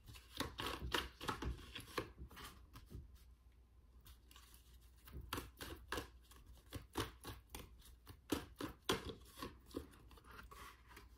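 A deck of Rider-Waite tarot cards being shuffled by hand: quick runs of soft clicks and rubs as the cards slide over each other, with a quieter lull about three to five seconds in.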